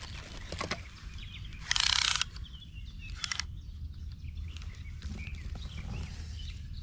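Handling noise as a soft measuring tape is taken out and unreeled: a loud, short rustling noise about two seconds in, a shorter one a second or so later, then lighter fiddling. Faint birds chirp over a low, steady rumble.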